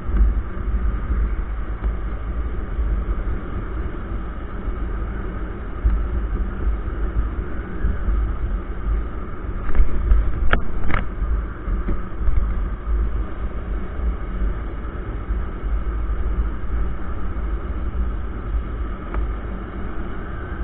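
Motorcycle cruising at about 45 km/h: steady engine and road noise under heavy low wind rumble on the bike-mounted microphone. Two sharp clicks about halfway through.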